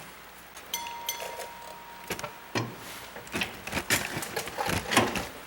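Scattered metallic clinks and knocks of tools, bolts and suspension parts being handled during installation of a new upper control arm. A brief thin ringing tone comes about a second in, and the knocks grow busier in the second half.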